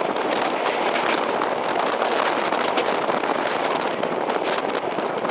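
Passenger train running at speed, heard from a window: a steady rush of wind and wheel noise with a continual fine rattle and clicking.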